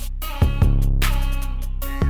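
Background music: a beat with a deep bass line and drum hits.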